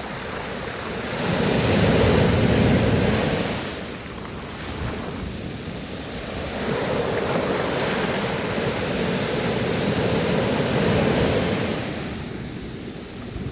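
Sea waves breaking and washing up the shore: a loud surge about a second in that dies away by four seconds, then a longer, softer wash from about six to twelve seconds.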